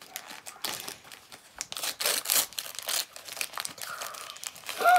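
L.O.L. Surprise doll's crinkly wrapper crinkling and tearing as it is pulled open by hand, in quick irregular crackles.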